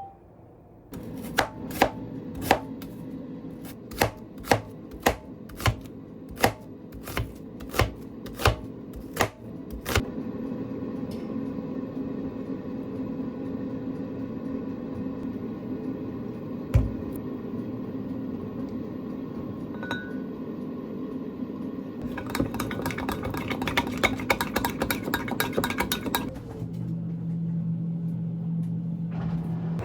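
Knife chopping on a cutting board: evenly spaced single strokes for about nine seconds, then a steady hum. Near the end comes a quicker run of chops or taps.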